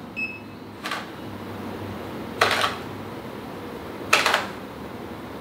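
Kitchen utensils against dishware: three short scraping clatters about a second and a half apart while sauce ingredients are weighed out into a container.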